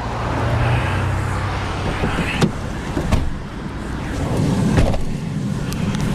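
Pickup truck running, a steady low engine and road hum, with a few sharp clicks or knocks.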